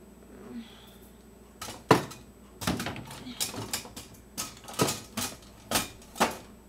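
About a dozen irregular sharp knocks and clicks, starting about two seconds in and the loudest near the start of the series.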